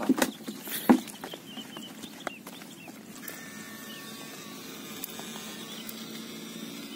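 A few knocks and rustles in the first second, like handling noise on the bank. Then a steady outdoor background with faint, short bird chirps now and then.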